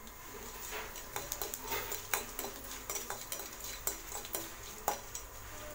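Metal spoon stirring and scraping a ghee tempering of peppercorns, cumin, cashews and curry leaves in a metal kadai, with irregular clicks and taps against the pan.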